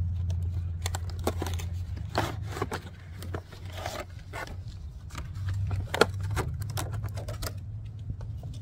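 A box of pliers being opened and the tools handled: a string of irregular clicks, taps and scrapes from packaging and metal, over a steady low hum.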